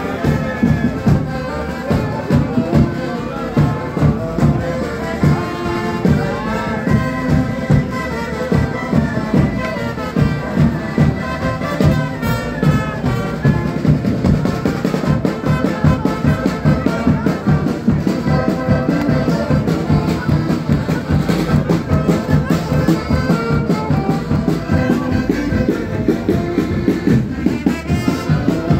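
Brass band with drum playing a lively carnival dance tune with a steady beat.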